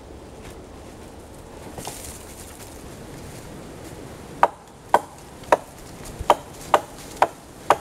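Axe chopping into a wooden branch propped across a sawhorse: seven sharp strikes, about two a second, starting about halfway through.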